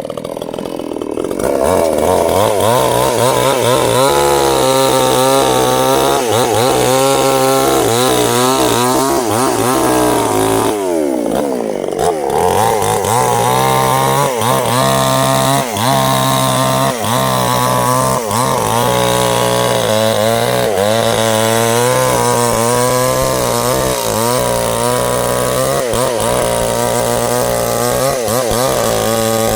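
Two-stroke chainsaw running at high revs while cutting sengon timber, its pitch wavering as the chain loads and unloads in the wood. About eleven seconds in it drops briefly toward idle and then revs back up.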